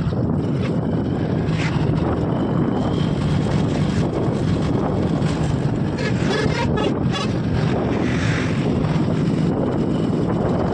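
Motorcycle riding along an open road: the engine runs steadily under a constant rush of wind buffeting the microphone.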